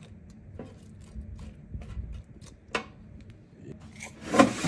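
Kitchen tongs clicking and tapping in an air fryer basket as raw shrimp and sliced peppers and onions are spread around. Near the end comes a much louder sliding rush and knock: the air fryer drawer being pushed shut.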